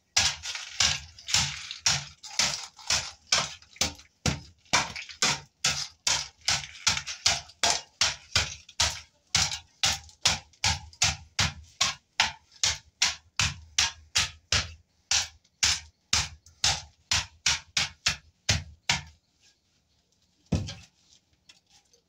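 Long-handled hoe chopping and scraping through broken brick and mortar rubble on a concrete floor: quick, gritty strokes at about two to three a second. They stop about 19 seconds in, and one more knock follows a little later.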